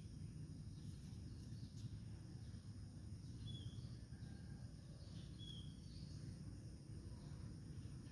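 Quiet outdoor ambience: a steady low rumble with a few short, high bird chirps, two of them about two seconds apart in the middle.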